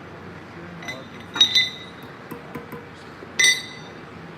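Two sharp clinks of hard objects knocked together, about two seconds apart, each ringing briefly, with a few lighter ticks in between.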